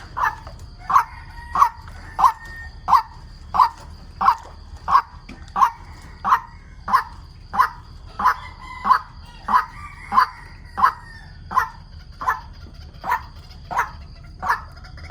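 White-breasted waterhen calling: a single sharp note repeated evenly, about three every two seconds, without a break.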